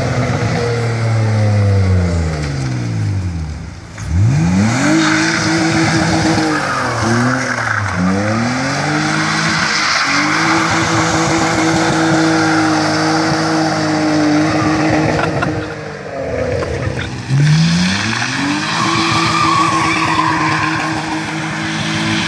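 BMW 320 E46 engine revving hard while the car does donuts, tyres spinning and skidding across the pavement. The engine pitch falls away at first, climbs sharply about four seconds in and is held high for many seconds. It dips again past the middle, then climbs and holds high once more.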